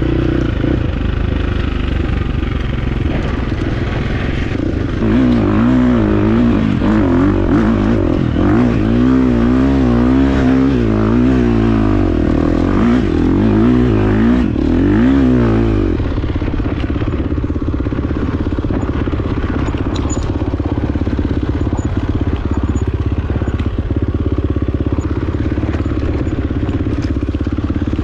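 Dirt bike engine under throttle on a trail ride, revving up and down over and over from about five seconds in while climbing a steep dirt slope, then settling into steadier running after about sixteen seconds.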